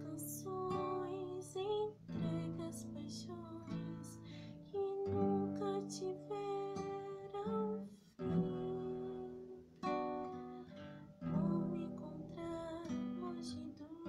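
Acoustic guitar strummed in chords, a fresh strum every second or so.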